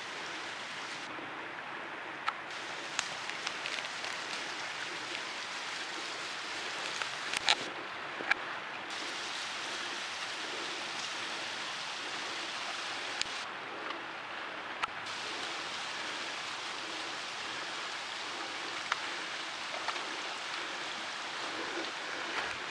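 Steady rushing of a small forest stream over stones, with a few scattered sharp clicks and snaps.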